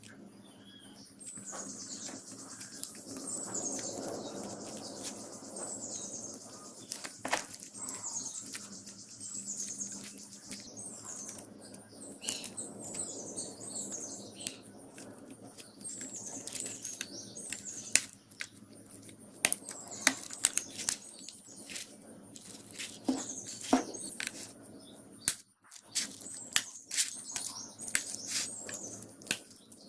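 A small bird chirping over and over, short falling chirps about once a second, with scattered sharp clicks and taps that come thicker in the second half.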